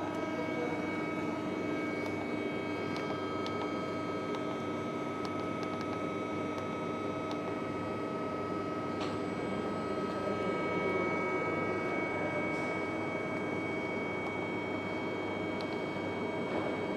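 Hwacheon Cutex 160A CNC turning and milling center running: a steady machine whine of several tones over a constant hum, with a few faint clicks. A further high tone joins about ten seconds in.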